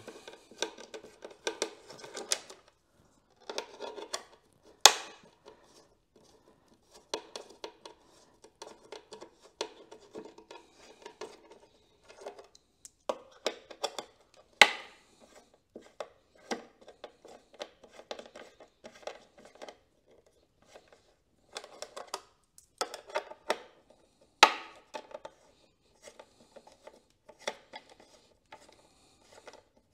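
Hand screwdriver backing screws out of a carbon-fibre hull: a long run of small scratchy ticks and clicks as it turns in the screw heads, with three louder sharp clicks spaced about ten seconds apart.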